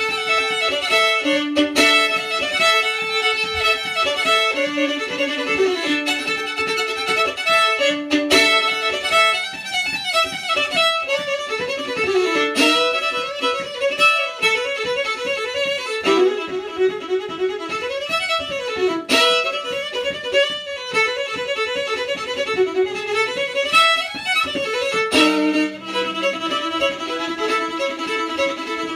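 Fiddle playing a Scottish tune: a quick, continuous stream of bowed notes rising and falling, shifting to a new phrase near the end.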